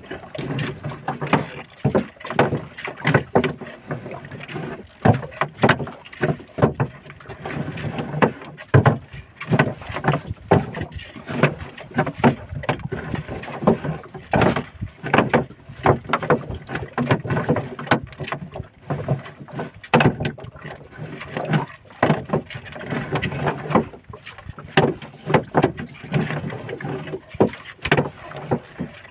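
Collapsible netted crab traps hauled hand over hand out of the water over the side of a small boat: irregular splashes and water streaming off the netting, mixed with knocks and clatter as the traps come over the gunwale.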